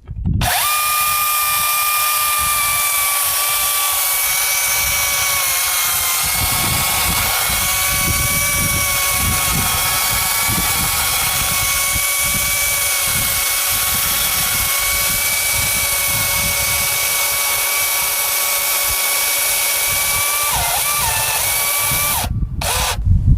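DeWalt DCM575 60V FlexVolt cordless chainsaw running steadily as it cuts through an oak log. Its electric motor whine dips slightly in pitch a few seconds in as it bites into the wood, then holds nearly constant and stops about 22 seconds in.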